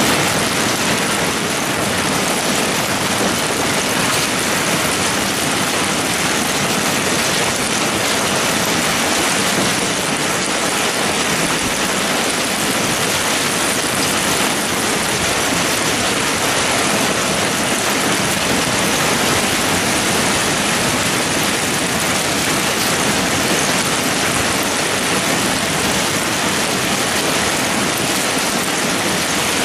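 Heavy rain mixed with hail pouring down, a loud steady hiss.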